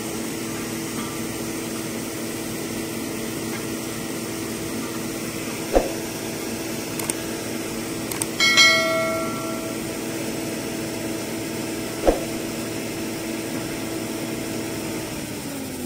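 Crane truck's engine running steadily while steel well pipes and clamps are handled. There are two sharp metal knocks, and about halfway through a loud clang of steel that rings like a bell for about a second. Near the end the engine's pitch drops slightly.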